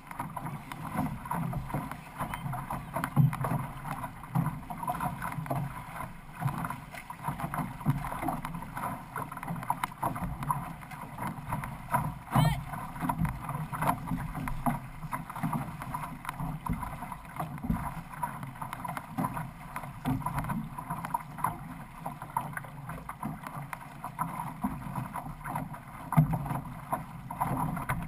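Water rushing and splashing along the hull of a six-person outrigger canoe under paddle, close to the microphone, with irregular louder splashes.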